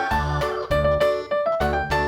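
Background music: a bouncy keyboard tune with a steady bass beat, notes changing about four times a second.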